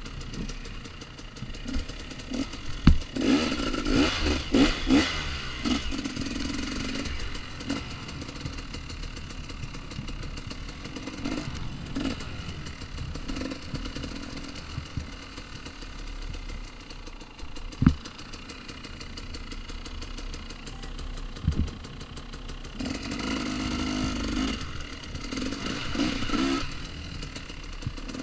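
2014 KTM 250 XC-W two-stroke dirt bike engine running under the rider, revving up in bursts about three seconds in and again near the end, with a few sharp knocks and rattles from the bike over rough ground.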